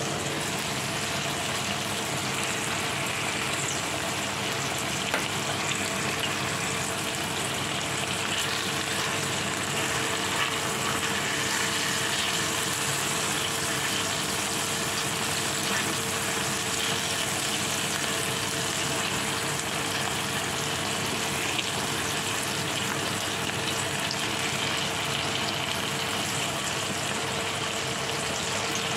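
Chicken thighs and garlic cloves sizzling steadily in hot oil in a frying pan, with a few faint clicks along the way.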